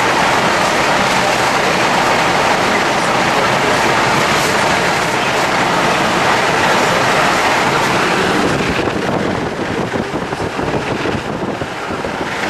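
Loud, steady rushing noise, easing and turning uneven about nine seconds in.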